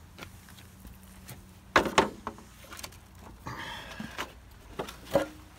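Footsteps walking outdoors, with two sharp knocks close together about two seconds in and another near the end.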